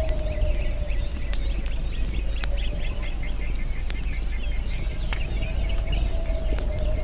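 Campfire crackling, with a sharp pop every second or so, over a low steady rumble and a layer of small birds chirping. A steady, slightly wavering tone hums along beneath.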